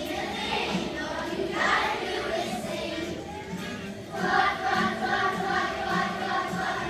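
A group of children singing together. Just before four seconds in they pause briefly, then hold several long notes.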